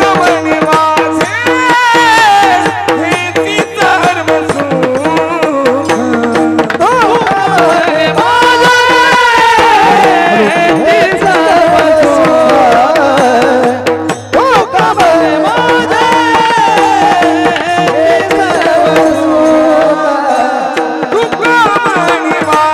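Marathi Warkari kirtan music: a solo voice singing an ornamented devotional melody, accompanied by tabla and steady held notes underneath.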